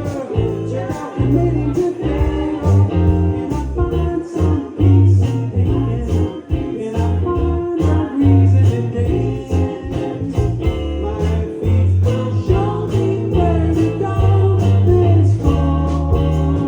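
Live band playing a song: a sung vocal line over electric guitar, bass and a steady drum beat.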